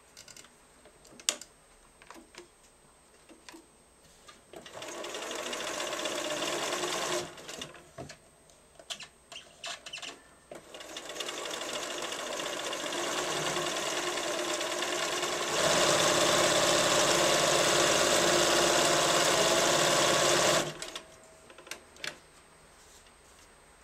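Bernina 1090 electronic sewing machine, Riccar-badged, stitching through fabric in two runs: a short burst about five seconds in and a longer run that gets louder partway through and stops suddenly about three seconds before the end. Light clicks and taps from the machine and fabric handling fall between the runs.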